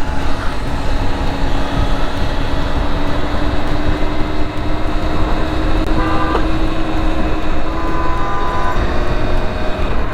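Motorcycle riding in traffic: a steady engine drone under heavy wind rush on the microphone, with a vehicle horn sounding briefly about six seconds in and again, a little longer, about eight seconds in.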